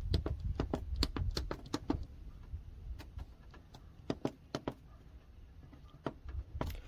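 Irregular light clicks and taps, about two or three a second, over a low rumble that fades after the first two seconds.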